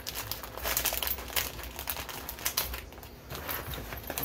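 Plastic-wrapped first-aid packets crinkling and a nylon pouch rustling as they are handled and packed, with many small clicks and taps.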